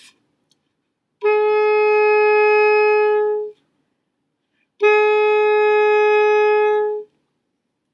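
Saxophone mouthpiece and neck played without the body: two long, steady tones on the same pitch, each a little over two seconds, with a pause of about a second between them.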